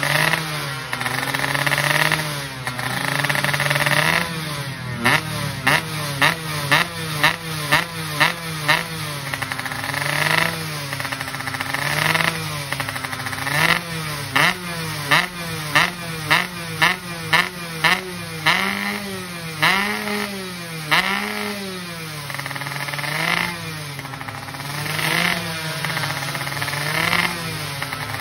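Two-stroke racing underbone motorcycle engine with a racing exhaust, revved on the stand: the throttle is held open briefly, then blipped in quick sharp rises and falls about twice a second, then opened in slower, longer revs near the end.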